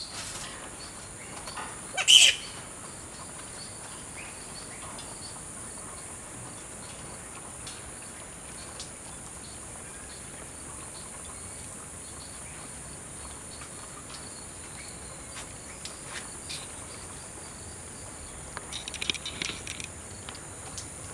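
Flying fox giving a single sharp squawk about two seconds in, with a few fainter squawks near the end, over a steady high-pitched hiss.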